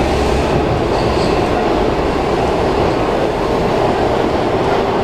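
Washington Metro 7000-series railcar running at speed between stations, heard from inside the car: a loud, steady rumble and rush of wheels on rail and running gear.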